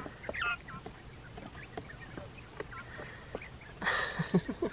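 Japanese quail chicks peeping in a few short falling chirps, with scattered light taps and a brief rustle about four seconds in.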